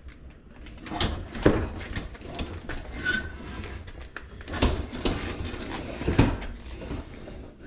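A Frigidaire dishwasher being shoved back into its cabinet opening: irregular knocks and bumps with scraping and rattling, the loudest thuds about a second and a half in and again about six seconds in.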